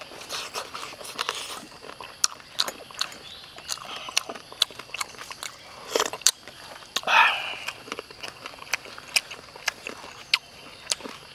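Close-up eating sounds: a man chewing boiled crocodile meat with many short lip smacks and mouth clicks, and one longer slurp of broth from a spoon about seven seconds in.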